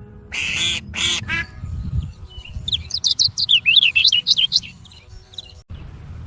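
Three short, raspy duck quacks, then about two seconds of rapid, high-pitched duckling peeping.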